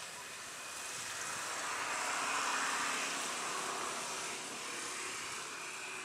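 Distant engine noise of something passing, swelling to a peak about two and a half seconds in and then fading.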